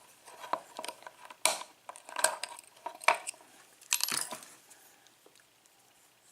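Small metal clicks and clinks as the retaining clip is worked off a picked Kwikset lock cylinder, about six sharp taps spread over the first four seconds, then quieter.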